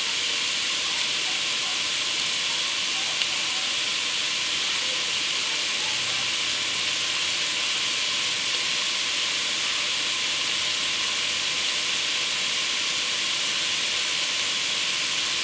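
Sliced carrots and celery sautéing in hot olive oil in an enameled cast-iron pot: a steady, even sizzle.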